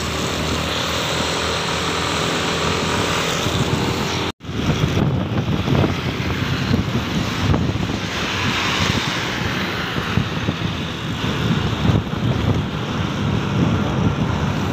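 Engine of a Yamaha Aerox scooter bored out to 190 cc, running under way, with wind buffeting the microphone. The sound cuts out completely for an instant about four seconds in.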